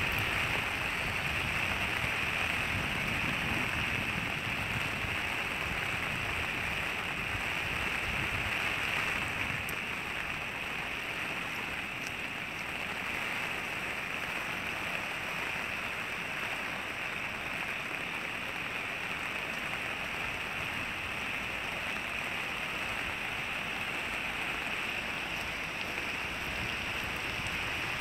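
Steady rain falling on wet pavement, a continuous hiss. A low rumble sits under it for about the first nine seconds, then stops.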